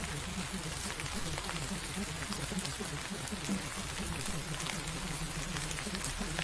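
Steady rain with scattered raindrop taps, and a faint, indistinct low murmur beneath it, typical of subliminal affirmations buried under a rain track.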